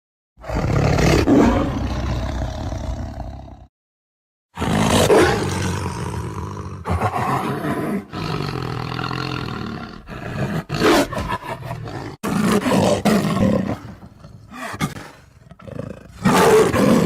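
Lion roaring: one roar of about three seconds, a pause of about a second, a longer roar of about five seconds, then a series of shorter roars with brief gaps between them.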